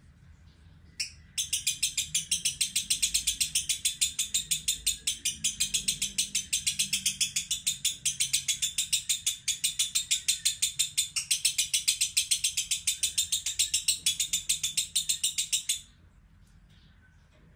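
Caged lovebird chattering: a long, fast, even string of shrill notes that starts about a second in and stops abruptly near the end.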